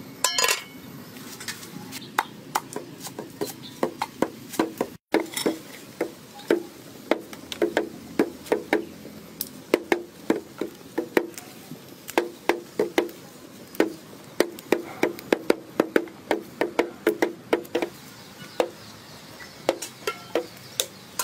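A quick, irregular run of sharp knocks and clinks from kitchen work with utensils and cookware, two to four a second, with a momentary break about five seconds in.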